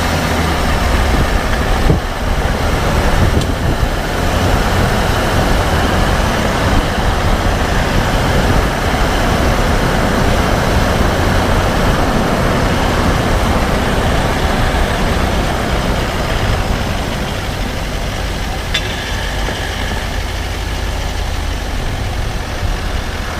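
A 2014 Range Rover Sport SDV8 running with steady vehicle noise, and a few short sharp clicks: one about two seconds in, another soon after, and one around nineteen seconds in. The clicking is thought by the owner to come from the front right wheel.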